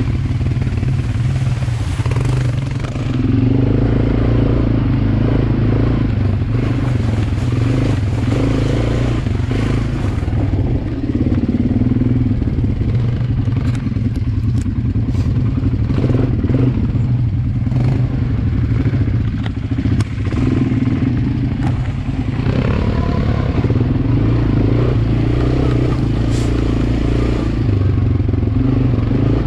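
ATV engine running while riding a bumpy dirt trail, its note swelling and easing with the throttle, with occasional knocks and rattles from the machine over bumps.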